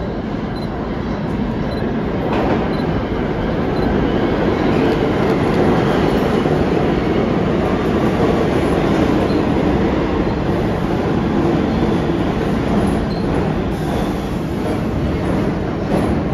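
R46 subway train pulling into an underground station: the wheel and track noise builds as it comes out of the tunnel, holds loud as the cars run along the platform, and eases slightly near the end as the train slows to a stop.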